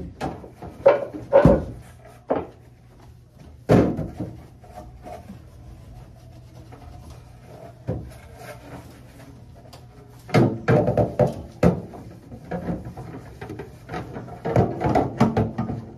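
Scattered knocks and clatters from inside an emptied refrigerator as its shelves and bins are handled and wiped, coming in busy bursts with quieter stretches between.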